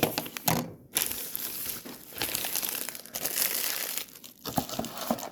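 Packaging crinkling and rustling as it is handled and crumpled for several seconds, followed by a few short clicks near the end.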